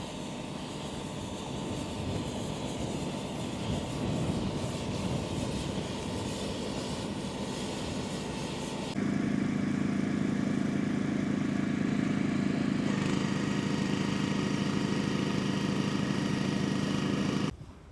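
A motor or engine running steadily with a constant hum. About halfway through it suddenly becomes louder, then cuts off abruptly near the end.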